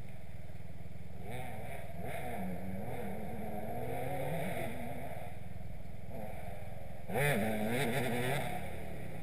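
Motocross dirt bike engines revving up and down as the bikes ride the track, with a louder burst of revving about seven seconds in.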